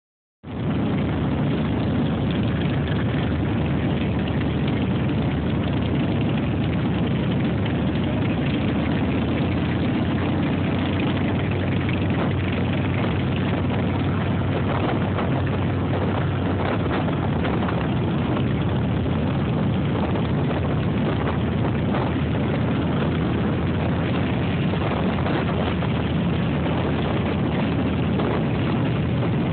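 A touring motorcycle's engine running steadily at low riding speed, within a column of other motorcycles, with a constant rush of wind and road noise.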